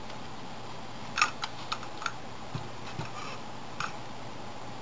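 A handled plastic toy monster truck giving a few light clicks and taps, the loudest a little over a second in, others scattered irregularly over the next few seconds, over a steady hiss.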